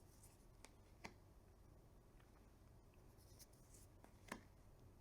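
Near silence, with a few soft clicks and faint swishes of tarot cards being handled and laid down; the loudest click comes about four seconds in.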